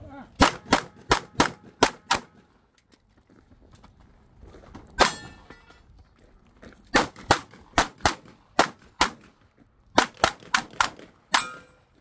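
Glock pistol shots fired in rapid strings: about six shots within two seconds, a lone shot about five seconds in, then two more strings of about six shots each, roughly three shots a second.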